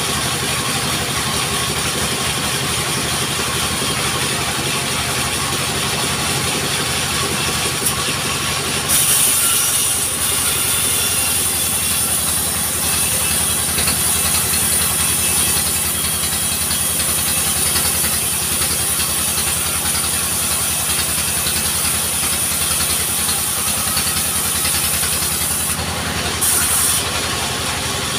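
Engine-driven log sawmill running steadily. From about nine seconds in until near the end, a log is fed through the blade and a loud high-pitched cutting sound rides over the engine.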